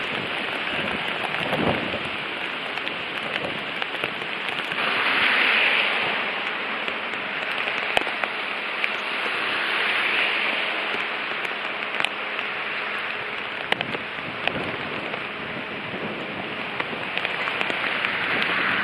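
Hurricane wind and driving rain, a dense rushing noise that swells and eases in gusts, with scattered sharp taps of drops. The sound changes abruptly about five seconds in.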